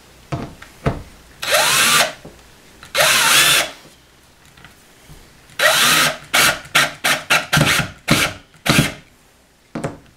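Power drill running in trigger pulls as screws are driven: two half-second runs with the motor winding up and down, then a longer run and a string of about eight quick short bursts.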